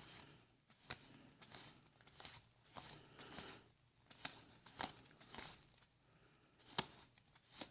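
Faint rustling swishes and light clicks of Magic: The Gathering trading cards being handled and flipped through, in a string of soft strokes with a sharper click now and then.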